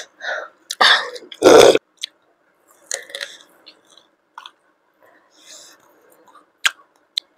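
Close-miked chewing and biting of a fried chicken leg, with wet mouth sounds and sharp clicks scattered through. A loud, deep sound comes about a second and a half in.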